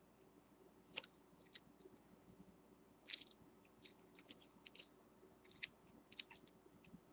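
Faint, scattered crackles and clicks of a small piece of duct tape being handled and cut down with scissors, the sharpest about one second and three seconds in.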